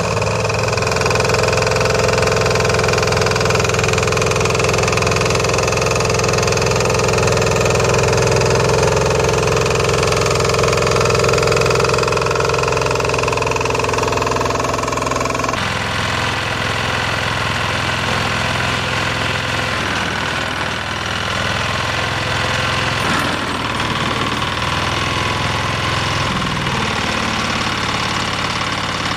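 Walk-behind tractor engines running steadily, with a knocking beat. About halfway through, the sound cuts abruptly to a different engine.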